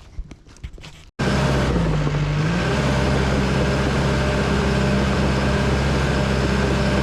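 Heavy equipment's diesel engine running steadily, cutting in abruptly about a second in, with a brief dip in pitch soon after.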